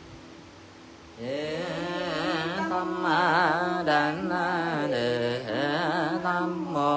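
A solo voice chanting a Buddha's name in a melodic Vietnamese Buddhist liturgical style, with long held notes and a wavering vibrato, beginning about a second in. Before it starts, only a faint steady hum is heard.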